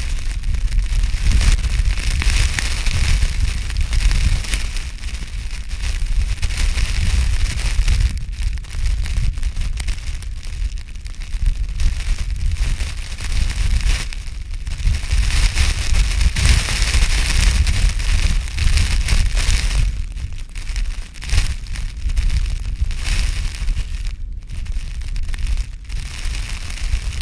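Strong wind buffeting the microphone with a heavy low rumble, and a hissing crackle of wind-driven snow and ice crystals that swells and fades with the gusts.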